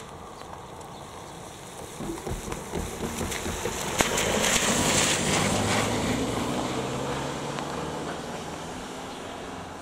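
A car passing close by on a wet road, its engine and tyre noise swelling to a peak about five seconds in and then fading away. A single sharp knock is heard about four seconds in.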